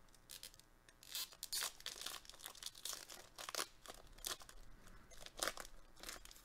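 Foil Weiss Schwarz booster pack being torn open and crinkled in the hands: a faint string of irregular tearing and crinkling noises.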